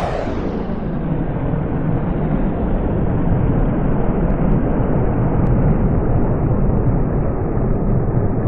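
Jet aircraft flyby sound effect: a fast falling whoosh right at the start, then a loud, steady jet engine rumble whose higher part slowly fades.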